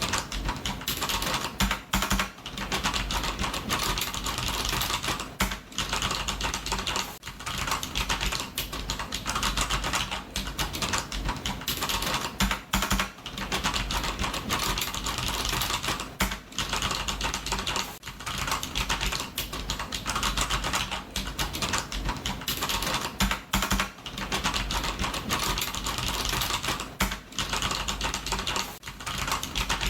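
Computer keyboard typing: fast, continuous key clicks in bursts, with short breaks every few seconds.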